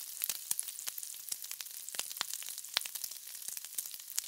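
Bacon sizzling on a flat-top griddle: a steady frying hiss with many sharp crackles of spattering fat, several a second.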